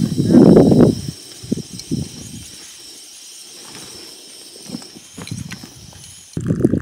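Rustling and crinkling of a dry bag and clothing being handled and packed. It is loudest in the first second, followed by quieter scattered rustles and a louder burst near the end.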